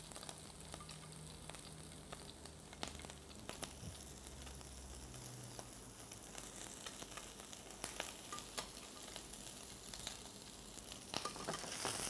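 Calamari rings and shrimp sizzling lightly in a frying pan, with scattered sharp clicks of utensils on the plate and pan. The sizzle grows louder shortly before the end as the seafood is stirred in the pan.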